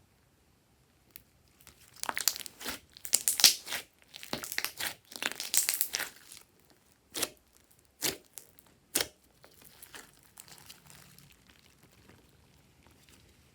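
Glossy slime being pressed and stretched by hand, giving sticky crackling for a few seconds, then three separate pops about a second apart, then fainter crackling.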